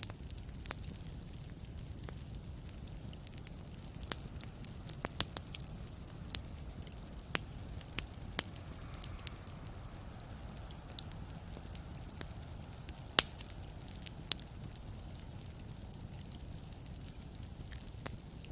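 Wood fire crackling in a fireplace: scattered sharp pops and snaps over a steady low rumble and hiss, with a cluster of pops about four to five seconds in and the loudest snap past the middle.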